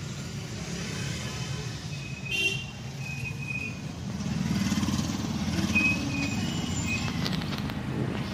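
Slow street traffic heard from inside a car: a steady low engine and road rumble, a little louder in the second half, with a few short high horn toots from the surrounding vehicles.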